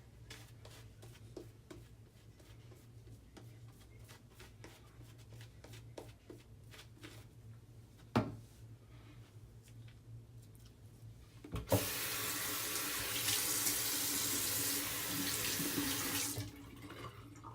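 Safety razor scraping through lather and stubble in quick short strokes, with one sharp knock about eight seconds in. Near the end a tap is turned on and water runs loudly into the sink for about five seconds, then is turned off.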